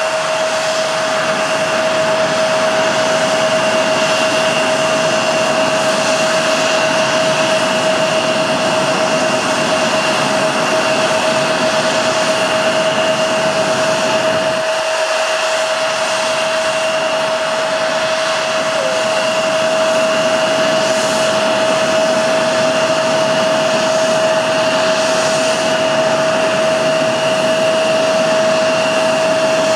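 Embraer 175 airliner's turbofan engines running steadily as it taxis: a constant rushing noise with a steady whine.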